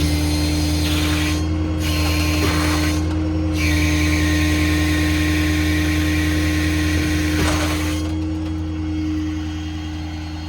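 Hydraulic crane being run on a service truck: three spells of hissing and whining as oil flows through the control valves, the last about four seconds long, over the steady hum of the 6.7 Powerstroke diesel engine turning the hydraulic pump.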